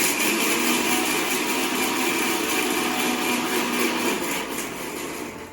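Bosch TrueMixx Pro 750-watt mixer grinder running at full speed, grinding a handful of roasted split gram to powder. The motor noise is quite heavy and cuts off suddenly at the end.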